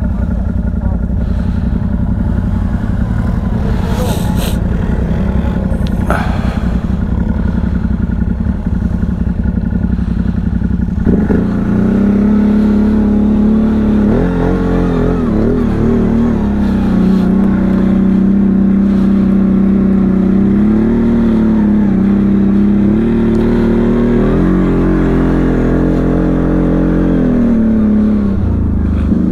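ATV engine running under load through snow. Its pitch rises and falls with the throttle, and about eleven seconds in the engine note turns louder and stronger.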